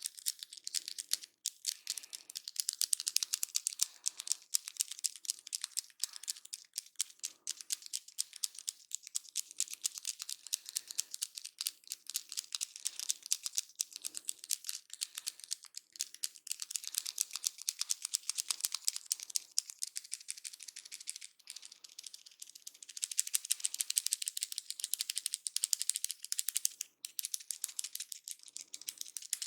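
Hands rubbing and working through hair on the scalp in a head massage, making a dense crackling in quick repeated strokes.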